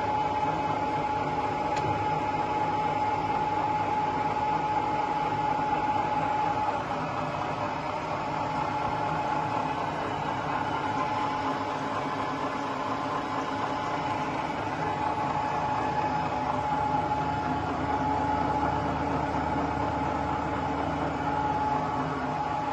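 Colchester Student 1800 lathe running under power: a steady mechanical hum with a steady high whine on top, which weakens slightly about seven seconds in.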